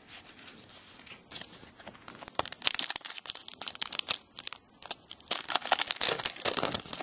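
2011 Select AFL Champions foil trading-card pack wrappers crinkling and being torn open by hand. The crackling is sparse at first and becomes dense about two and a half seconds in.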